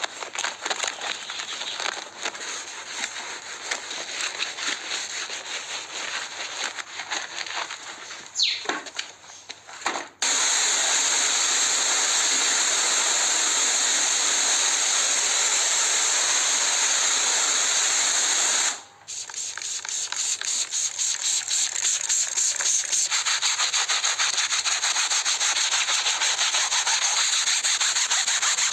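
Sanding: abrasive rubbing on a hard surface in quick, repeated scraping strokes. About ten seconds in it turns into an even, continuous hiss for roughly eight seconds, stops suddenly, then gives way to quick even strokes again.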